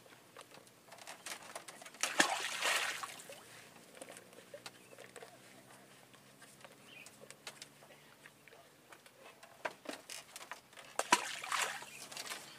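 Water splashing and sloshing in two short bursts, about two seconds in and again near the end, with light knocks in between.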